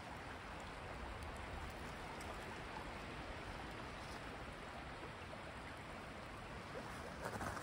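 A shallow brook babbling over rocks: a steady, even rush of running water.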